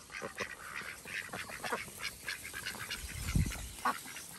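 A flock of domestic ducks quacking, with many short calls overlapping one another throughout. A brief low rumble comes about three seconds in.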